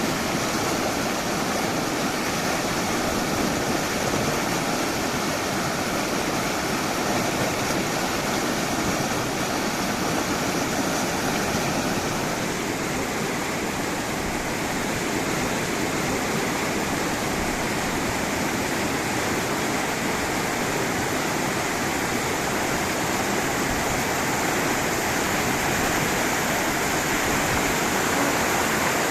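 River water rushing over rocks in a cascade, a steady full hiss of moving water.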